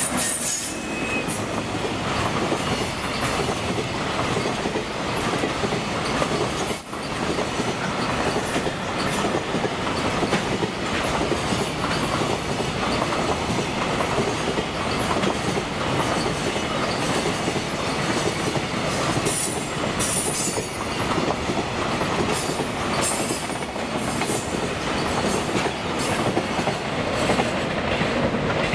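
Container flatcars of a long electric-hauled freight train rolling past: a steady, loud rumble of wheels on rail, with repeated short high-pitched bursts from the running gear.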